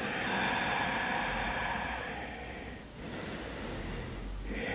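A woman breathing slowly and audibly through the nose: two long breaths with a short gap about three seconds in.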